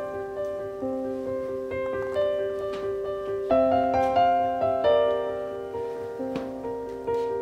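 Background piano music: a slow melody of single notes and chords, each left ringing as the next begins.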